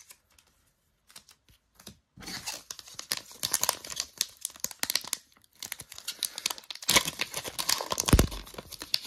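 Foil wrapper of a Naruto trading card booster pack crinkling as it is picked up and torn open, starting about two seconds in and loudest near the end. A dull bump near the end.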